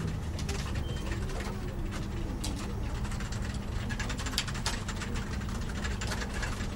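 Office ambience: a steady low hum with scattered light clicks and taps throughout.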